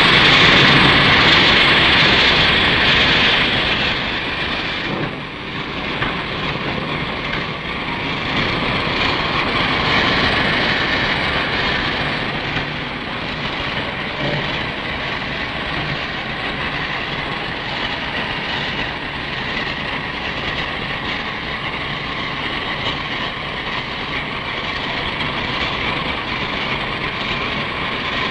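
Burlington Route steam locomotive 5626 heard at close range: a steady hiss of steam over the noise of its running gear. It is loudest for the first few seconds.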